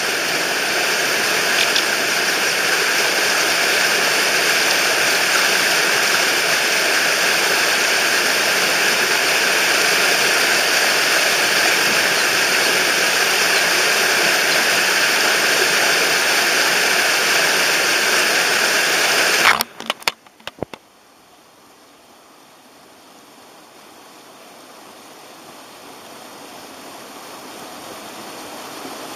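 Rushing mountain stream, steady and loud. About twenty seconds in, a few sharp knocks as the camera is knocked over, which the title puts down to a brown dipper. After that the water is much quieter and muffled, slowly growing louder again.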